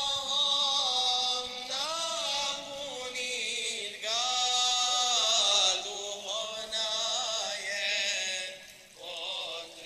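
A man singing a dervish ilahija, a Bosnian Sufi devotional hymn, in long held, ornamented phrases.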